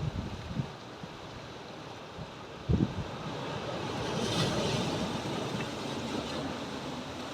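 Atlantic waves breaking on rocks: a steady rush of surf that swells about four seconds in as a wave breaks and washes over, with a few short low thumps in the first three seconds.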